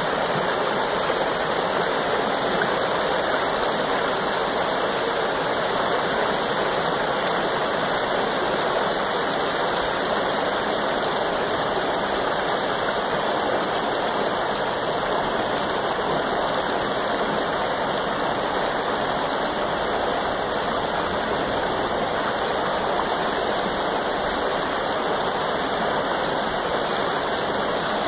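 Shallow rocky creek rippling over stones and small riffles: a steady, even rush of running water.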